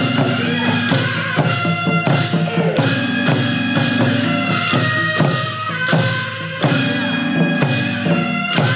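Music with percussion and a steady beat.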